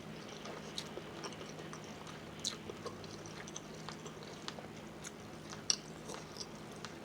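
Close-miked chewing and biting, with scattered short wet clicks from the mouth, over a steady hiss of heavy rain.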